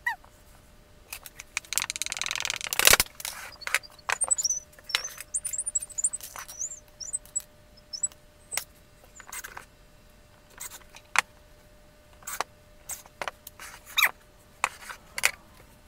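Wooden model parts clicking, knocking and scraping as they are handled and pressed together, with a denser rattling scrape about two to three seconds in. A run of short high squeaks follows, from about four to seven seconds.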